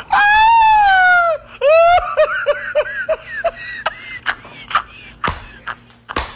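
A person laughing hysterically: a long, very high squealing laugh that falls in pitch, then breaks into a rapid run of short 'ha-ha' bursts that tail off into scattered snickering breaths.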